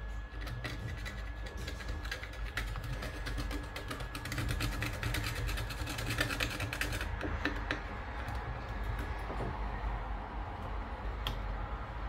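Quick, irregular small clicks and scratches of hand work on a metal detector's parts at a repair bench, densest from about four to seven seconds in, over a steady low hum. A thin, steady high whine fades out partway through.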